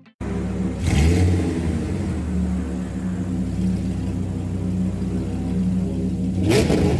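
Motorcycle engine idling steadily, with the throttle blipped twice: a quick rev about a second in and another near the end.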